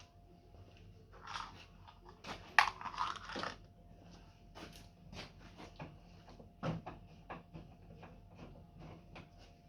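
Irregular clicks, knocks and short scraping noises of things being handled, with a louder crunching scrape from about two to three and a half seconds in.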